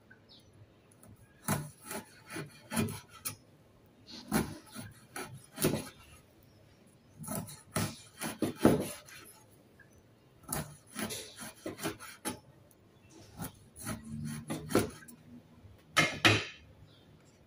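A cleaver cuts through skin-on raw fish against a wooden cutting board, in bursts of quick rasping strokes with short pauses between them.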